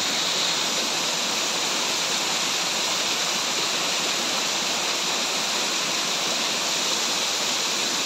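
Waterfall pouring down a rock face onto boulders: a steady, unbroken rush of falling water.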